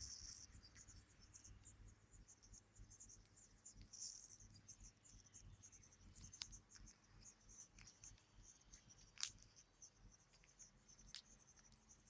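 Near silence with faint, rapid high-pitched chirping throughout and a few sharp clicks, the loudest about nine seconds in.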